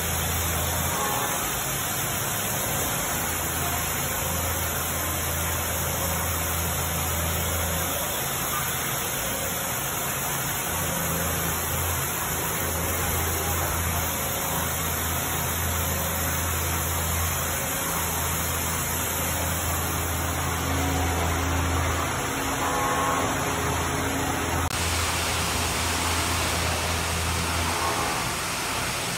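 Hurco VTXU 5-axis vertical machining center milling a metal part under flood coolant: steady spindle and cutting noise mixed with the hiss of coolant spray, over a low machine hum that swells and fades. About 25 seconds in the sound changes as the cut finishes and the spindle lifts clear.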